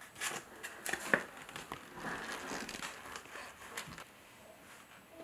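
Canvas and paper rustling and crinkling as a printed canvas is folded around its wooden stretcher frame by hand, with one sharp click about a second in. The handling goes quieter after about four seconds.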